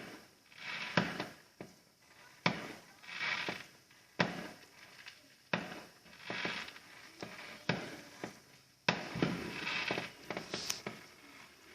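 Fireworks going off: a series of sharp bangs, about eight in all, each followed by a second or so of crackling, with a short rising whistle near the end.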